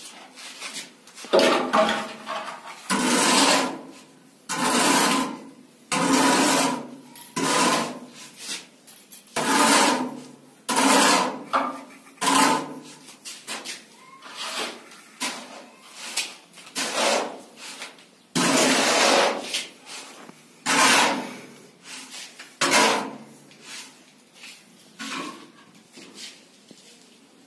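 A plasterer's trowel scraping and smoothing cement plaster along a wall-ceiling cornice border, in a run of uneven strokes about one to two seconds apart. One longer stroke comes a little past the middle, and the strokes grow lighter near the end.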